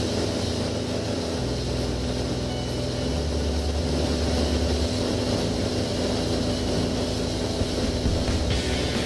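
Steady drone of a light aircraft's engine and propeller in flight, a constant hum with a hiss of rushing air.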